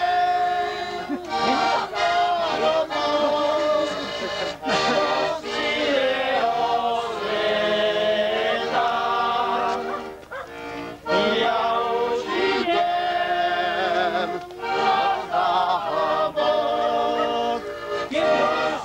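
Accordion playing a folk tune, dipping briefly about ten seconds in.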